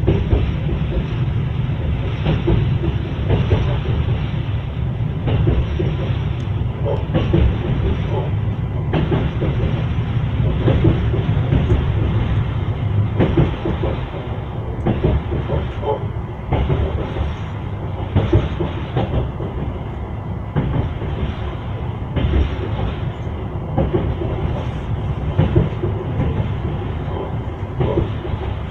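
Train wheels clattering over rail joints: a steady rolling rumble with repeated knocks.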